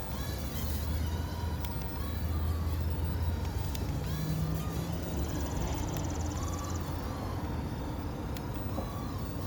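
Small toy RC flyer's electric motors and rotors whirring in flight, the faint whine wavering up and down in pitch as the throttle changes, over a steady low rumble.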